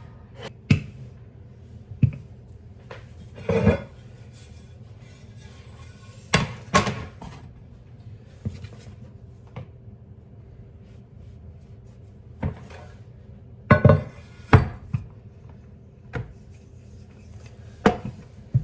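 Kitchenware being handled: a series of separate knocks and clacks of dishes, pans and utensils set down and moved, about ten in all, over faint background music.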